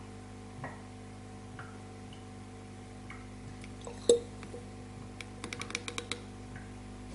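A few faint clicks over a steady low hum, one sharper click about four seconds in, then a quick run of about ten light ticks within a second.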